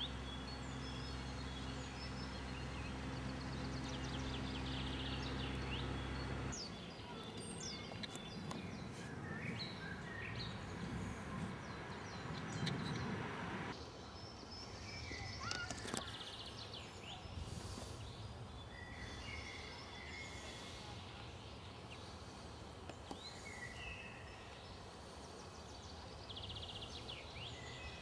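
Songbirds chirping and whistling around a pond, with a low steady hum in the first six or so seconds that stops abruptly.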